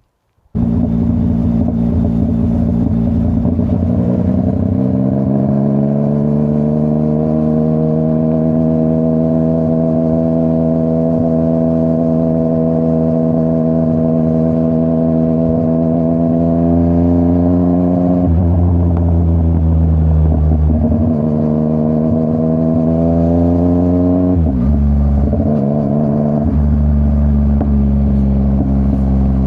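Yamaha MT-09's CP3 inline three-cylinder engine running through a full Akrapovic exhaust system, heard from the bike while riding. It starts abruptly about half a second in, climbs in pitch over a few seconds and holds a steady cruising note, then dips and rises again several times in the second half as the revs change.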